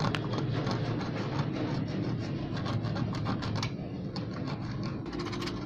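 A pointed steel pick scratching crusted rust off the iron handle of an antique hand pruner held in a vise, a fast run of short, dry scrapes.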